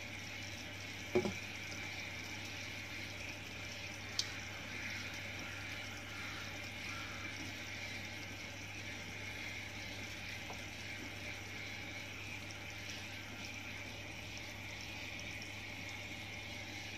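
Steady bubbling of a pot simmering on the stove over a low hum, with a knock about a second in and a sharp click about four seconds in as tongs work in the pan.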